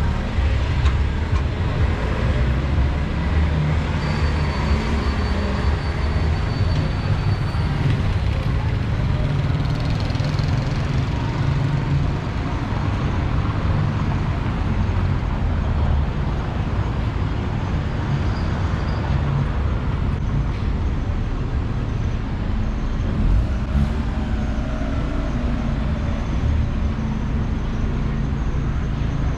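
City street traffic: a steady low rumble of passing cars and buses.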